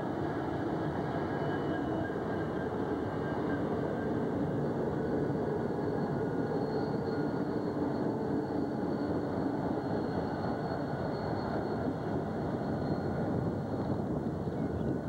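Loaded coal train rolling by: steel wheels of the heavy hopper cars running on the rails and BNSF diesel locomotives working, a steady continuous rumble.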